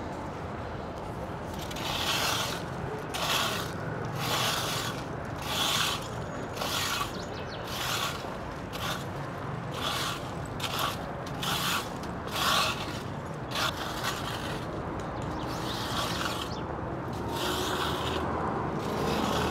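Metal fan rake dragged over gravel and dirt, its tines scraping and rattling in repeated strokes about once a second.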